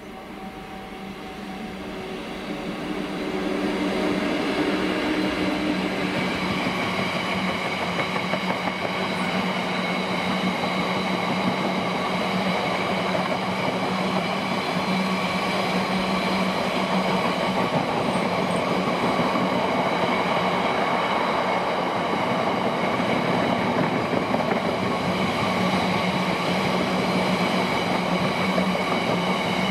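Class 59 diesel locomotive drawing near, its engine note audible for the first few seconds, then a long train of box hopper wagons rolling past. The wheels make a steady rumble with clickety-clack and steady ringing tones over it.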